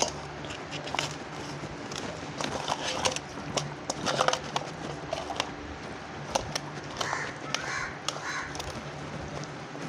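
Hands working a wet masala paste into whole fish in a steel bowl: soft squelching, with scattered clicks and taps of fingers and fish against the bowl. A few short calls sound in the background about seven to eight and a half seconds in.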